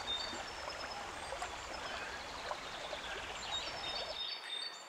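Forest stream flowing steadily, with faint high bird calls and chirps over the water.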